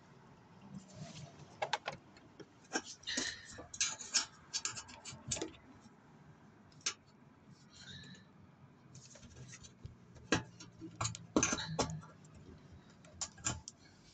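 Irregular small clicks and rattles of a hand working a clipped plastic cable connector loose on a Toyota Aqua hybrid battery pack.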